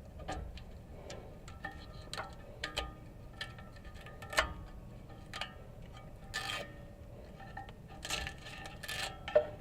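Irregular metallic clicks, taps and scrapes with a light ringing, as hardened exhaust repair paste and old patching are picked and broken off an exhaust pipe. The sharpest taps come about four seconds in and near the end.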